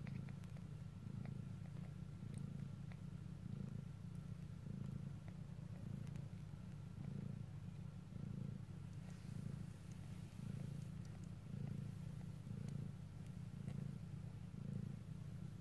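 Mother cat purring steadily while her newborn kittens nurse, the purr swelling and fading about once a second with her breathing.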